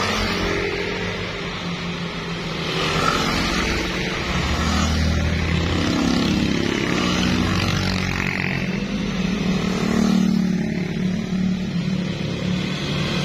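Motorcycles and scooters riding past one after another through a bend. Their engines run continuously, swelling about three seconds in and again around ten seconds as riders go by.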